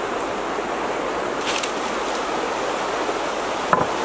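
Steady rushing hiss, with the single sharp knock of a wooden plank being set down near the end.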